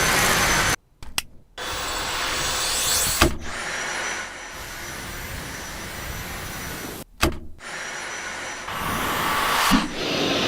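Stick vacuum cleaner's motor running, breaking off abruptly twice, with a few sharp clicks.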